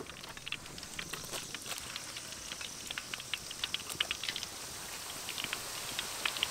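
Drained noodles frying in a wok of hot oil: a hiss of bubbling oil with many scattered crackles and pops, slowly growing louder.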